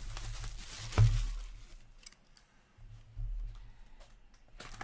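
Cardboard hockey card box being handled and opened on a table: one sharp knock about a second in, then soft cardboard scrapes and small clicks, over a low hum.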